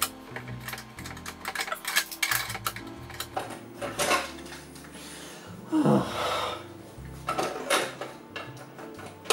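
Plastic clicks and clacks of a Commodore Datasette cassette drive being handled, with a longer scrape about six seconds in.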